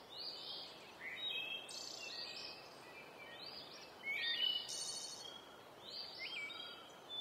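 Several birds calling in woodland, short high chirps and trills overlapping one another, over a faint steady hiss of outdoor ambience.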